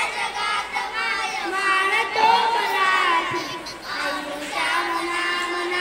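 Several young children singing together from a lyric sheet, with long held notes.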